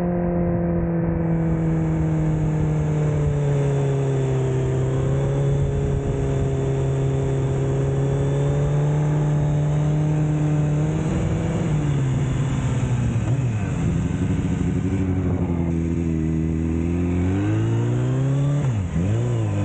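MV Agusta Brutale motorcycle engine running under way at a steady pitch, which falls and wavers about twelve seconds in as the revs drop, then rises again; a quick dip and rise in pitch near the end.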